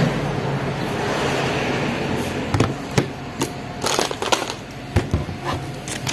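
Plastic packaging rustling, then a series of irregular sharp taps and knocks as a plastic milk bottle and other items are handled and set down on a table.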